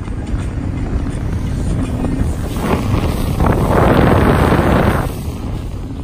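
Motorboat running across open water, its engine rumbling under wind buffeting the microphone, with a louder rush of wind about three and a half to five seconds in.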